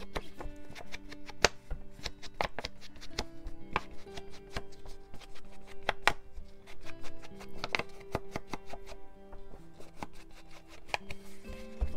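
Soft background music of held notes that change every second or two, over irregular sharp clicks and taps from crafting materials being handled on a desk.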